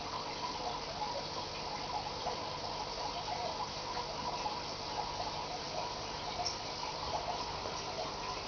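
Aquarium water steadily trickling and bubbling, a fine, even patter with no pauses.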